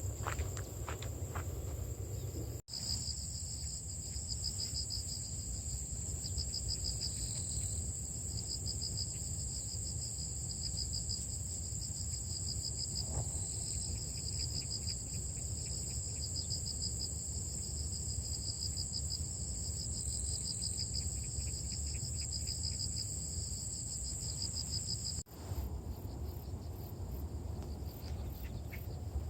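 Crickets chirping in a steady chorus: a rapid pulsing trill over a higher continuous buzz, with a low rumble underneath. The chorus breaks off abruptly twice, once near the start and once near the end.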